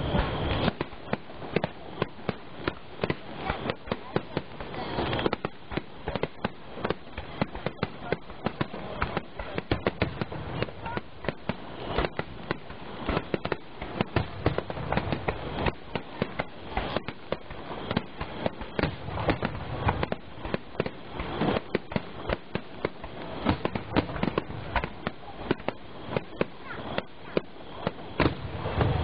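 Fireworks going off in a rapid barrage: a dense stream of sharp bangs and crackles, many each second, with louder bursts scattered through it.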